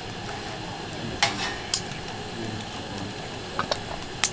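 Metal tongs clinking against a steel fire pit and burning firewood as the wood is shifted: a handful of sharp clicks and clinks, spread unevenly, over a low steady rustle.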